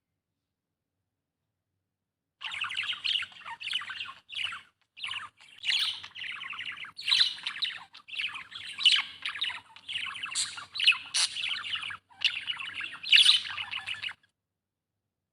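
Budgerigar chattering and warbling: a dense run of quick chirps and squawky notes that starts about two seconds in and stops about a second before the end.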